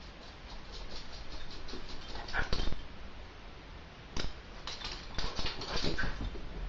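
A house pet making a run of quick clicks, then two louder bursts with short squeaky calls, one about two and a half seconds in and one from about four to six seconds.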